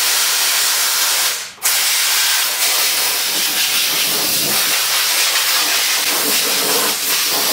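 Compressed-air blow gun blasting dust off a push mower's engine and deck: a loud steady hiss of air in two long blasts, with a short break about a second and a half in.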